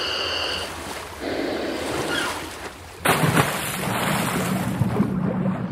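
Seaside ambience: sea and wind noise, changing in steps, with two faint steady high tones at the start and a sudden louder rush about three seconds in.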